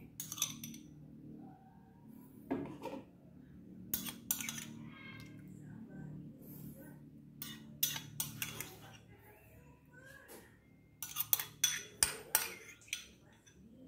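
Metal spoon clinking and scraping against a small glass bowl while scrambled egg is scooped out, in scattered light clinks with a quick run of sharper clinks about eleven seconds in. A faint low hum runs underneath.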